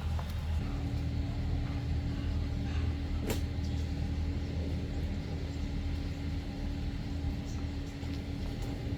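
An engine running steadily with a low rumble; a steady hum joins in under a second in, and there is a sharp click a little over three seconds in.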